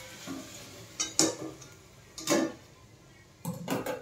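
Steel kitchenware clinking: a steel plate is set down as a lid on a steel kadhai with a metal pot gripper, and the gripper is put down on the counter. About five separate metallic clinks and knocks.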